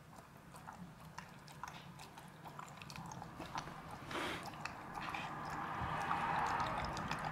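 Dog lapping and chewing soft food from a bowl as it is spoon-fed: a quick string of wet licks and smacks, growing louder in the second half.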